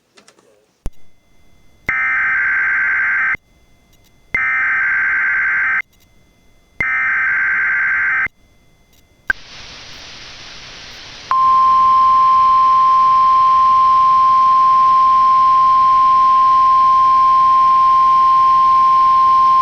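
NOAA Weather Radio required weekly test: three short bursts of SAME header data tones about a second apart, then a click and a stretch of hiss, then the steady 1050 Hz warning alarm tone held for about nine seconds.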